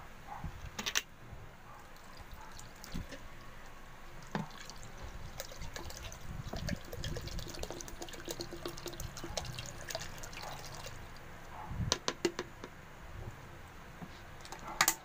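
Liquid poured from a plastic bottle into a plastic bucket of liquid detergent while a wooden stick stirs it: sloshing and splashing with many small clicks. Sharp knocks, the loudest sounds, come about a second in, about twelve seconds in and at the very end.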